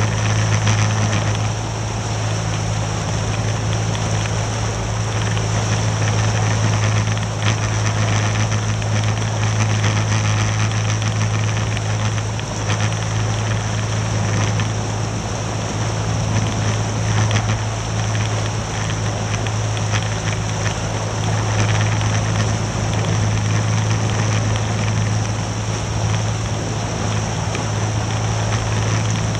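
Outboard motor of a RIB running steadily at low speed (about 6 mph), a constant low drone, with rushing water and wind noise over it.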